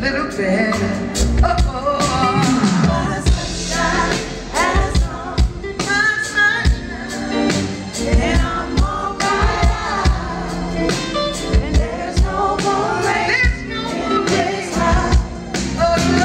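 Live neo-soul band playing with a woman singing lead over a steady drum beat.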